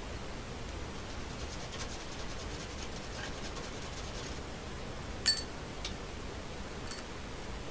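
Fingertip rubbing flour through a fine wire-mesh sieve: a soft, rapid scratching over a steady hiss, with a sharp click about five seconds in and two fainter ticks after it.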